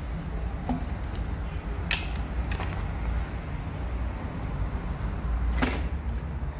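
Motorcycle handlebar being handled and set back into its clamps: a few sharp metal clicks and knocks, the loudest about two seconds in and again near the end, over a steady low hum.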